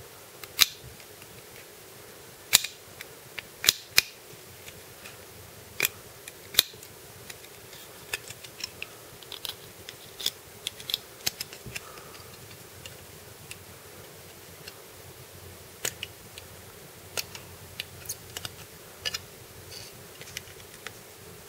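Hard plastic Mini 4WD kit parts clicking and tapping as they are handled and fitted. A few louder sharp clicks come in the first seven seconds, then a run of lighter, irregular clicks.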